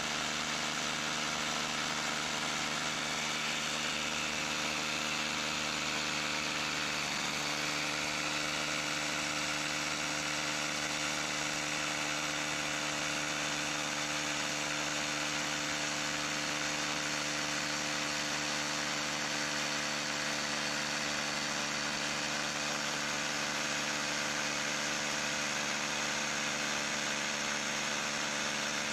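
A small engine or motor running steadily at one constant speed: an even hum with a hiss above it.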